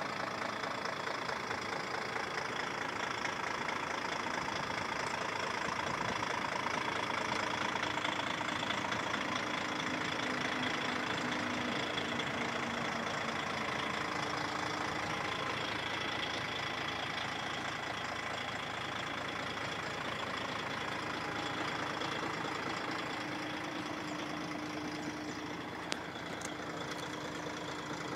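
DAF XF105 460 tractor unit's 12.9-litre six-cylinder diesel idling steadily, with a single click near the end.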